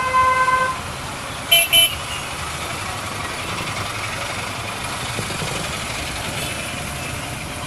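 Vehicle horns: one honk held for under a second at the start, then two short beeps about a second and a half in, over steady road-traffic noise.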